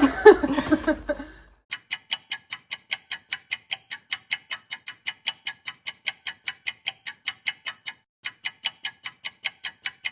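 Rapid, even clock-like ticking, about four to five sharp ticks a second over dead silence, with a short break about eight seconds in.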